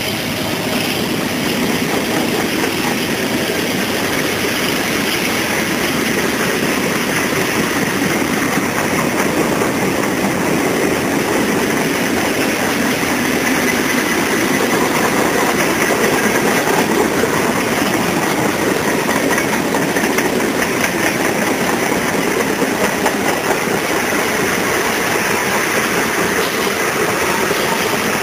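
Freight train's covered hopper and tank cars rolling past at speed: a steady rush of steel wheels on rail.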